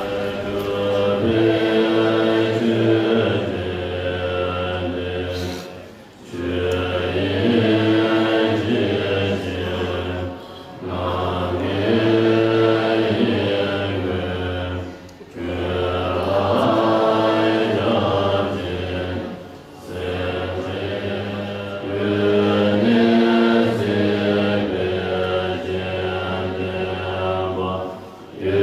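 Chanted vocal music: voices sing held notes over a steady low drone, in phrases of about four to five seconds separated by brief pauses.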